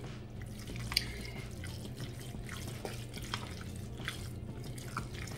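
A plastic spoon stirring tuna salad in a stainless steel bowl: soft wet squelching with scattered light clicks and taps against the bowl, the sharpest about a second in.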